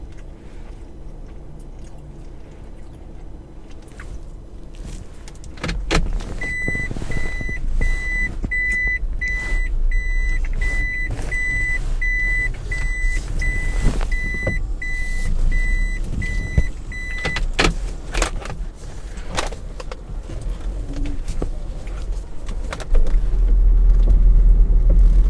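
A car engine starts and runs with a low rumble. A dashboard warning chime beeps steadily, about one and a half beeps a second, for about eleven seconds, then stops with a click. The engine gets louder near the end.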